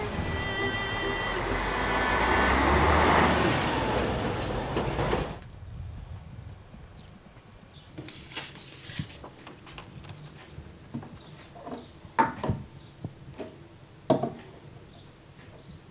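Street traffic with a vehicle driving past close by, its noise swelling to a peak about three seconds in, under the fading end of string music. The traffic cuts off suddenly at about five seconds. What follows is a quiet room with a few light knocks and clicks, the loudest two near the end.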